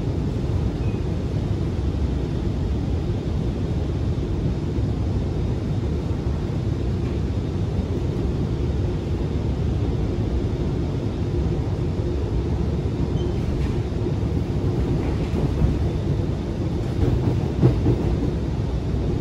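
Steady rumble of an Alstom Movia R151 metro train running at speed between stations, heard from inside the passenger car, with a faint steady tone above the rumble. A few louder bumps come near the end.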